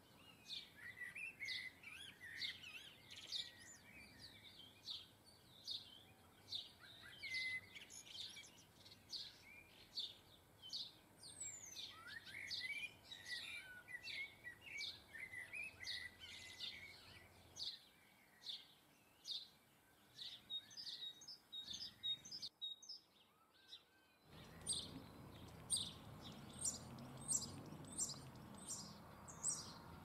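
Small garden birds chirping and singing, many short, quick calls overlapping one after another. There is a brief break about three-quarters of the way through, and then the chirping resumes.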